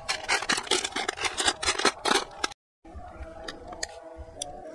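Metal spoon stirring snails in their shells in a steel tray, a fast clatter of shells knocking and scraping against each other and the metal. The clatter stops suddenly about two and a half seconds in, and only a few faint clicks of shells being handled follow.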